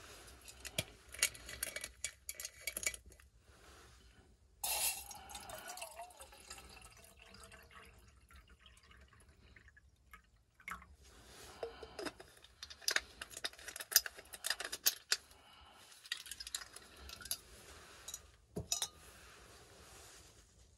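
Small gas canister camping stove burning with a steady hiss under a metal mug, with scattered clinks and light knocks of metal cookware and gear being handled. About four and a half seconds in there is a sudden louder rushing sound that fades over a few seconds.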